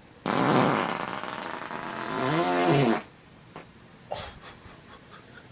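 A long, loud fart of nearly three seconds: a noisy blast that turns into a pitched, wavering flutter near the end. A couple of faint clicks follow.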